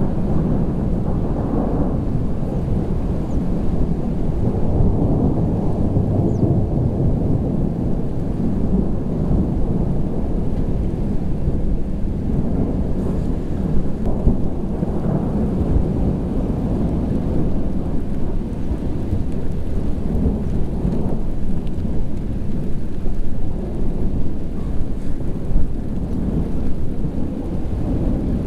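Thunder from a supercell rumbling almost without a break, in slow swells.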